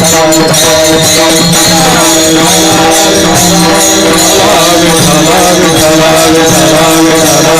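Devotional kirtan music: voices chanting over a steady held drone note, with small hand cymbals clashing in a regular beat.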